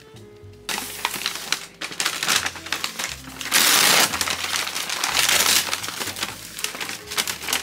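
Crinkling and rustling of something being handled, starting about a second in and loudest around the middle, over soft background music.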